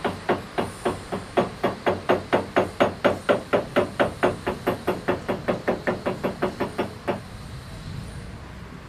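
Small jeweller's hammer tapping rapidly and evenly on metal work at the bench, about four to five blows a second. The blows stop about seven seconds in.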